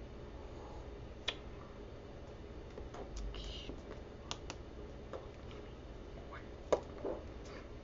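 Light, scattered clicks and taps over low room noise, the loudest about seven seconds in: stacked bangle bracelets knocking together on a signing wrist.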